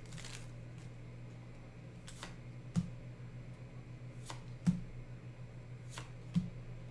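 Yu-Gi-Oh trading cards being flipped through by hand, with a light click or snap about once a second as each card is slid off the stack. A faint steady hum lies underneath.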